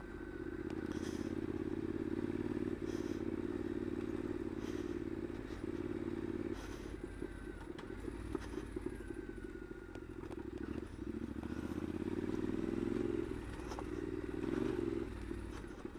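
Triumph Scrambler's air-cooled parallel-twin engine running under way on a rough dirt track, muffled under the helmet, its note rising and falling with the throttle. Scattered clatters and knocks come from the bike riding over the uneven surface.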